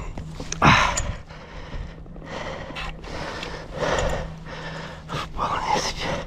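Irregular clicking, rattling and rustling of fishing tackle being handled, over a faint steady low hum.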